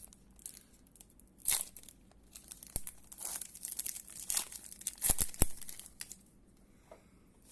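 A trading-card pack wrapper being torn open and crinkled by hand, in irregular bursts with a few sharp clicks.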